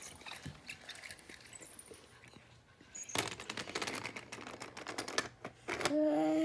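Small plastic LEGO pieces and toys clicking and clattering as they are handled and knocked about, with a denser run of rattling clicks about three seconds in. A drawn-out voice sound starts near the end.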